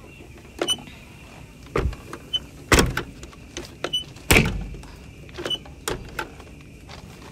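A series of knocks and clunks as someone handles the cab door of a Komatsu PC110 excavator and climbs down out of the cab. The loudest clunk comes about four seconds in and rings on briefly.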